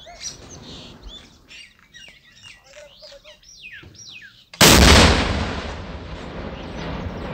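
Birds chirping, then about four and a half seconds in a single loud blast of rocket-launcher fire that breaks in suddenly and rolls away, fading over the next few seconds.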